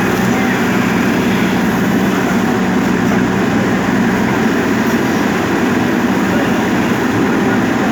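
JCB backhoe loader's diesel engine running steadily under work, a constant heavy hum.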